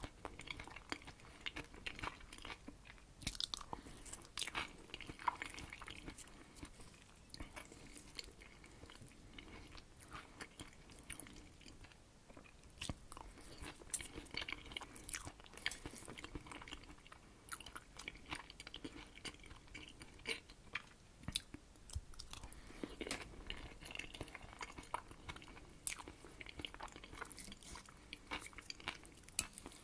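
Close-miked chewing of Herring under a Fur Coat (shuba) salad: wet mouth sounds with many small, sharp clicks, going on steadily.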